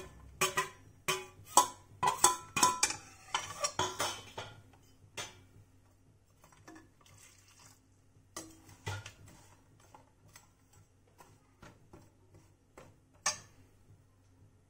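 Slotted steel spoon scraping and clinking on a steel plate as lumps of jaggery are tipped into a pot: a rapid run of clinks and knocks for the first four seconds or so. After that, only occasional light knocks of the spoon in the pot as the jaggery is stirred, with one sharper knock near the end.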